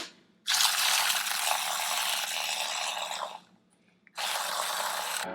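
Kitchen tap running in two spells: a steady rush of about three seconds, a short break, then about another second.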